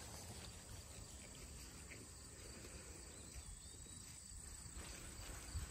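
Faint, steady high-pitched insect chirring, like crickets in long grass, over a low rumble.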